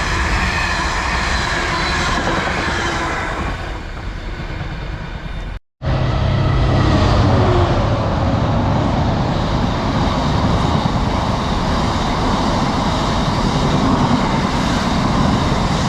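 Class 66 diesel locomotive running light through the station, its two-stroke diesel engine and wheels on the rails, easing off slightly. About five and a half seconds in the sound cuts out abruptly for a moment, then steady train running noise resumes at full loudness.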